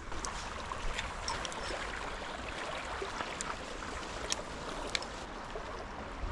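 Small river flowing, a steady rush of water over the shallows, with a few scattered light clicks.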